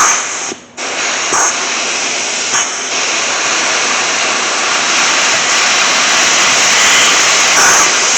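Compressed air hissing loudly as it is blown into an ATV front brake caliper, used to force the rubber dust seal over the piston. A steady hiss with a brief break about half a second in and a few short surges.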